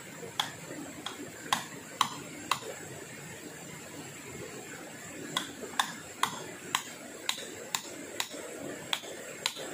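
Sharp knocks of a hand tool striking wood, about two a second: a run of five, a pause of about three seconds, then about nine more.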